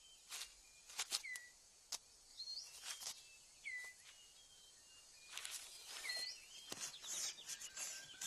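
Quiet rainforest with a bird's short whistle that slides down and levels off, repeated every couple of seconds. Scattered sharp clicks and rustles run through it, fitting a male six-plumed bird of paradise picking leaves and twigs off his display court.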